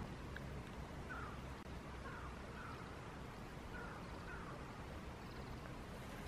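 A bird calling in the distance: faint short calls, mostly in pairs about half a second apart, over a low steady rumble.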